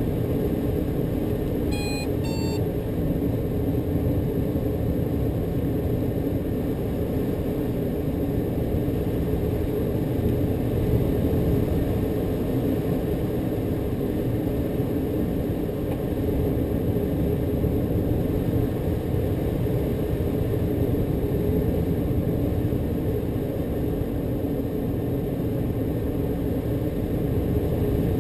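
Steady rush of airflow in a motorglider's cockpit while it glides with the engine stopped. Two short electronic beeps sound about two seconds in.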